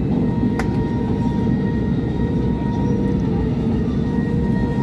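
Steady jet engine rumble heard inside the cabin of an Airbus A320-family airliner taxiing, with a faint steady whine over it. A single sharp click about half a second in.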